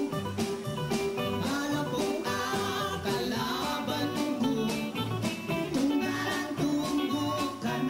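Live band music: male vocals sung into microphones over electric guitar and drums, with a steady beat.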